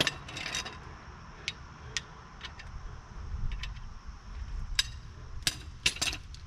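Scattered, irregular sharp metallic clicks and ticks of a wrench and socket being handled on a steering rack mounting bolt, over a low background rumble.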